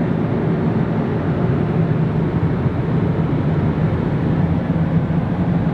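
Steady cabin noise of an Airbus A350-900 in cruise: an even, low rush of airflow and engines with a steady hum underneath.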